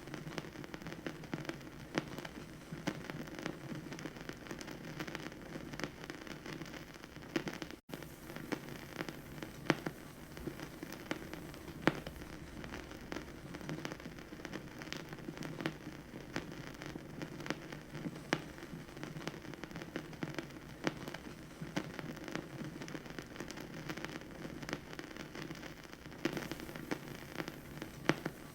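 Vinyl record surface noise: a steady crackle dense with sharp pops and clicks, cutting out for an instant about eight seconds in.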